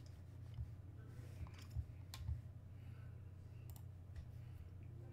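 A few faint, scattered clicks from a computer mouse, over a steady low hum.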